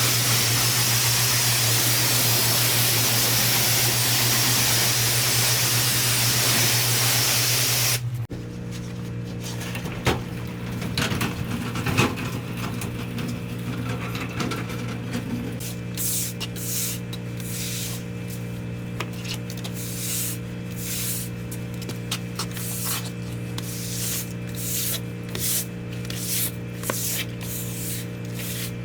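Pressure washer spraying a block-paved patio: a loud steady hiss of the jet over the machine's steady hum, cut off abruptly about eight seconds in when the trigger is released. The machine then runs on with its hum, a couple of clicks, and short repeated bursts of spray in the second half.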